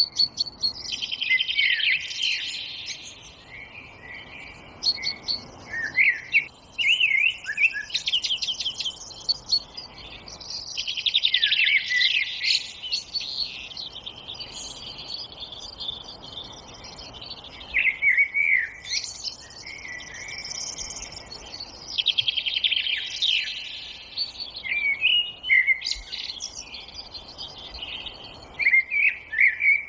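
Songbirds singing in a forest, with trilled phrases and quick chirps coming in bursts every few seconds over a faint steady background hiss.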